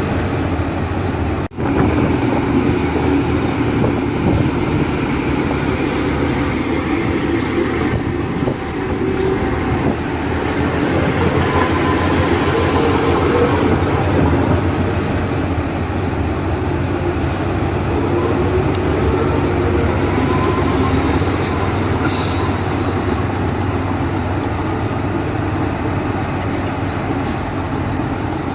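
Heavy diesel machinery running steadily, the engines of a bulldozer and garbage trucks working a landfill. A short hiss, like an air-brake release, comes about three-quarters of the way through.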